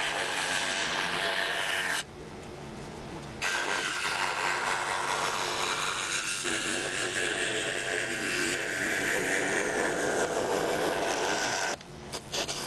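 Scroll saw with a #7 Pegas spiral blade cutting birch plywood, a steady buzzing rasp. The sound drops back for about a second and a half about two seconds in, then runs steadily again before breaking into short stops and starts near the end.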